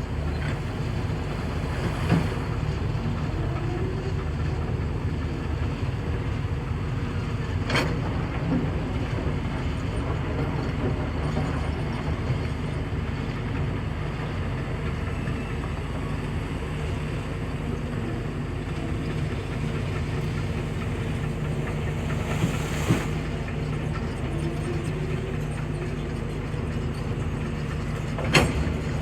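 A heavy hydraulic excavator's diesel engine running steadily with a deep, even rumble, broken four times by a short sharp knock or clank.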